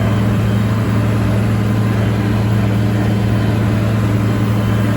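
International Harvester 1206 tractor's diesel engine running loud and steady under load while it drives a bush hog through briars.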